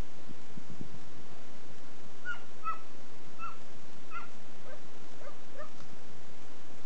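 Dogs yipping: a run of about five short, high yelps that drop in pitch, starting about two seconds in, followed by a few lower, shorter yips, over a steady background noise.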